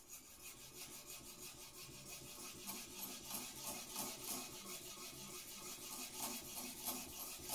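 Steel knife blade being stroked back and forth on a wet 1000-grit Naniwa Chosera whetstone: a faint, even rubbing grind of rapid, regular strokes.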